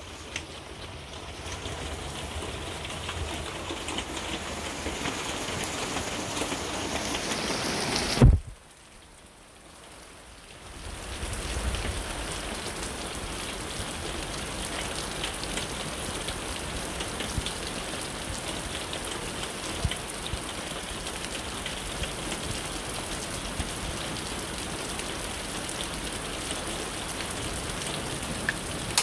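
Rain falling steadily, with a loud knock about eight seconds in followed by a couple of much quieter seconds before the rain sound returns.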